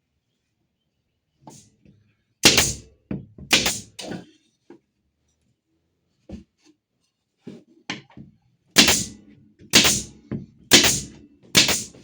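Sharp knocks of something striking wood: three loud thwacks in quick succession, a few faint taps, then four more about a second apart.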